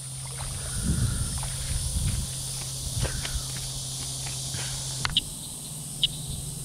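Footsteps and rustling through wet grass with a few low thumps as a freshly caught bass is carried and landed, over a steady high insect drone. After a cut about five seconds in, short high chirps repeat about once a second.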